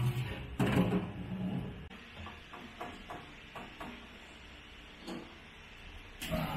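Kitchen handling noise: a clatter a little under a second in, then a run of about seven light knocks, roughly three or four a second, and another single knock near the end.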